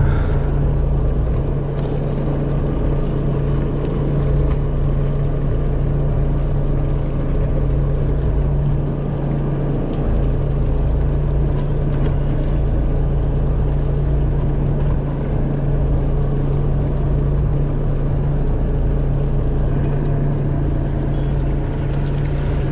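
Fishing charter boat's engine running steadily, a constant low hum with the rush of wind and water.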